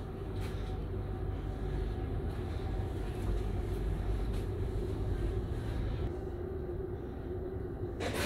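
Steady low rumble and hum of a large passenger ferry's machinery heard inside the passenger deck, with a few faint ticks and a sharp knock at the very end.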